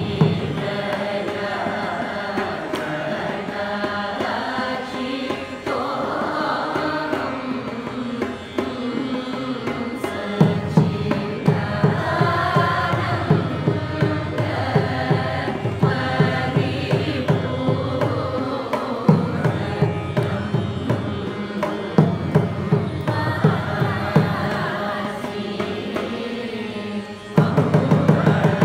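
Group of voices singing a Carnatic kriti in raga Shankarabharanam in unison, with violin following the melody, a tambura drone and steady mridangam strokes that grow louder near the end.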